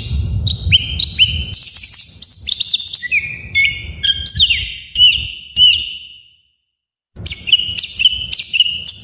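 Oriental magpie-robin (kacer) singing in fast, repeated phrases of sharp chirps and quick slurred whistles. The song fades about two-thirds of the way through, breaks off for under a second, then starts again abruptly.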